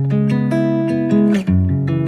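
Background music with plucked acoustic guitar, notes changing quickly, with a brief drop about one and a half seconds in.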